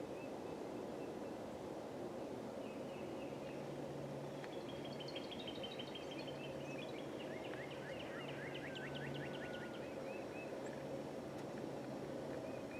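Faint outdoor birdsong: a few short chirps, then a few seconds of a rapid, fast-repeating trilling call in the middle, over a steady low hum.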